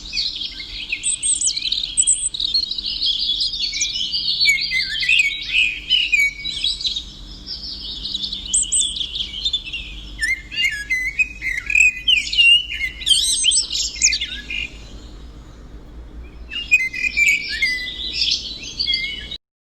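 A small songbird singing a long run of quick, high chirps and trills, with a short break about three quarters of the way through; the song cuts off suddenly just before the end.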